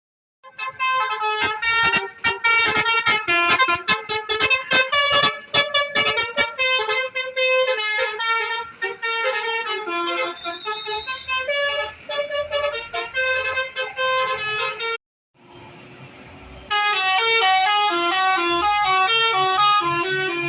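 Telolet bus horn, a multi-tone musical horn, playing a fast melody of short stepped notes. It breaks off abruptly about 15 seconds in, goes quiet for a second and a half, then starts up again.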